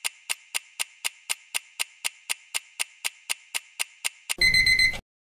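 Clock-ticking sound effect counting down a quiz timer, about four sharp ticks a second, ending a little after four seconds in with a short, louder alarm-like buzz.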